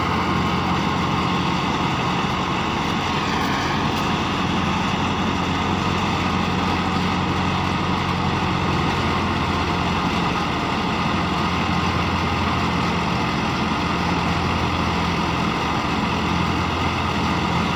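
Massey Ferguson 385 tractor's diesel engine running steadily under load, driving a PTO-powered thresher that whirs as it threshes pearl millet. The machine's high whine dips briefly in pitch about three seconds in, then recovers.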